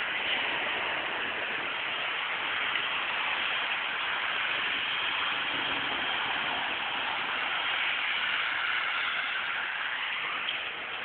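Steady hiss like static, even throughout, with no distinct event standing out.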